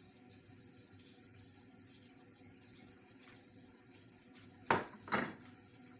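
Faint steady hiss, then two sharp knocks about half a second apart near the end.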